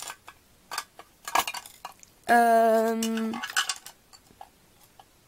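Light clicks and clatter of plastic lipstick tubes and lip pencils being handled and set down against a clear acrylic makeup organizer, a few separate knocks. Midway through, a woman's voice holds one steady note for about a second.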